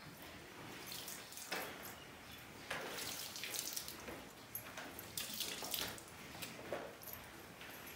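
Milk squirting from a cow's teats into a pail during hand milking, coming in short hissing spurts about once a second.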